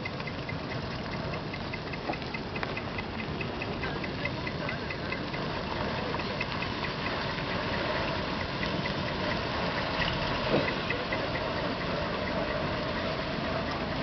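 Diesel engine of a decorated dump truck idling and running slowly as it rolls past, with a faint high ticking repeating about three times a second. A brief louder sound comes about ten and a half seconds in.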